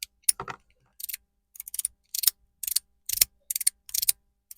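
Monkey Mind fidget slider being worked back and forth, giving a run of short, sharp clicks, about three a second and unevenly spaced.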